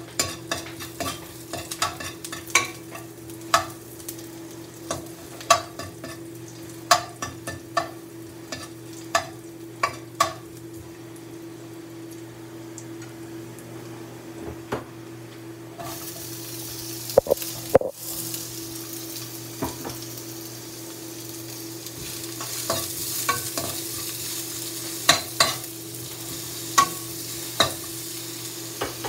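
Garlic frying in oil in a nonstick pan while a metal spoon stirs, tapping and scraping against the pan. About halfway in the sizzle suddenly grows louder, with a few loud knocks, as sliced onions go into the pan; a steady low hum runs underneath.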